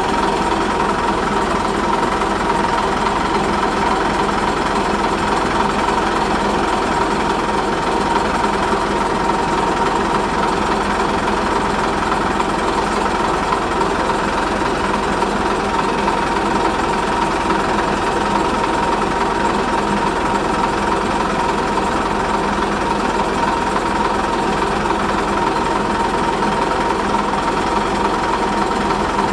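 Diesel shunting locomotive's engine running steadily, heard close up, an unchanging drone with a constant whine.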